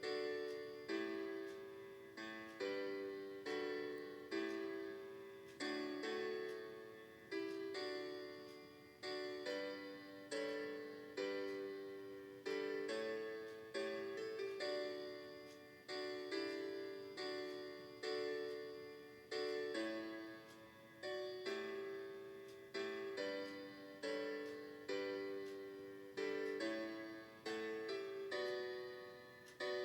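Piano playing the tune of a slow church hymn in chords, each chord struck and left to fade, a new one every second or two.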